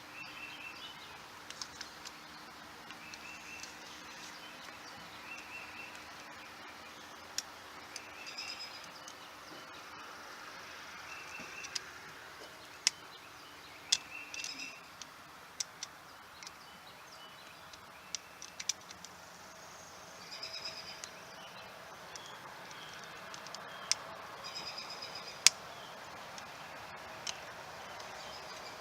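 Birds chirping in short repeated bursts, with scattered sharp clicks and taps from a hose clamp being tightened by hand onto a plastic water hose; the loudest click comes near the end.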